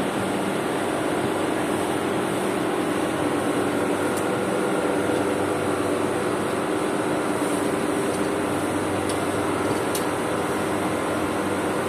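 Steady mechanical drone: a constant hum with a few held tones over an even wash of noise.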